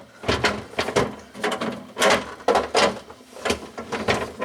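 A removable refrigerator part being worked back into place: a run of irregular scrapes and knocks as it is pushed and jiggled into its slots.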